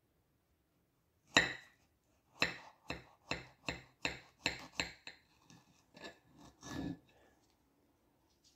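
Kitchen knife clicking and tapping against a plate while cutting into a Carolina Reaper pepper: one sharp click a little over a second in, then a quick run of about ten sharp clicks, a few a second, growing weaker toward the end.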